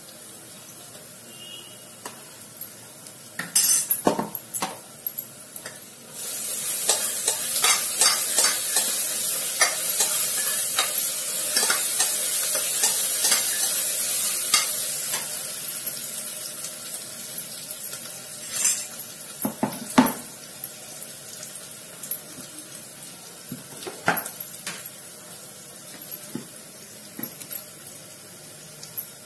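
Ginger-garlic paste sizzling as it hits hot oil and fried onions in a pressure cooker: a loud sizzle starts suddenly about six seconds in and slowly dies down, with a spoon stirring and knocking against the pot now and then.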